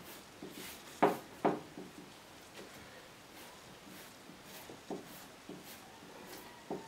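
Paintbrush working acrylic paint on a canvas, with soft repeated brushing swishes. Two sharp knocks come about a second in, with a few lighter taps near the end.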